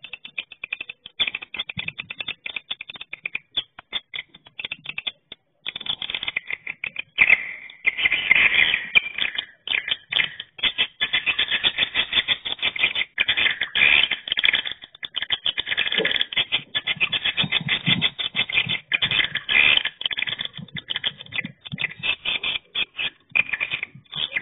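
Swiftlet lure call played through a rooftop tweeter: rapid, high-pitched chirping and clicking twitter, thinning to scattered clicks about four to six seconds in before it picks up again.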